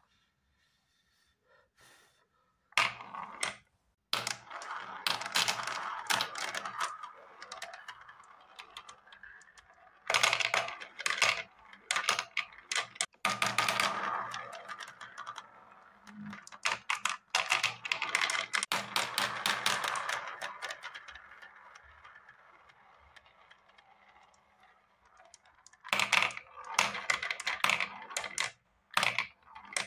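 Balls rolling and clattering down a plastic spiral marble-run track, dropping through the funnel holes onto the tray below. The sound comes in several runs of rapid clicking and rattling, one of which slowly fades away.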